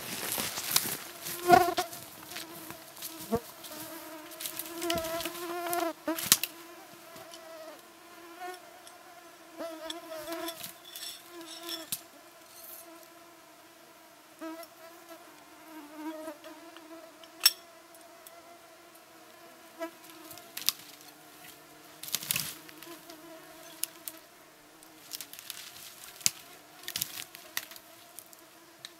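Flying insects buzzing around, a steady drone that wavers slightly in pitch, with scattered rustles and sharp clicks throughout.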